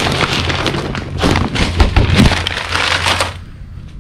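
Crumpled brown packing paper rustling and crinkling loudly as it is pulled out of a cardboard box, stopping a little after three seconds in.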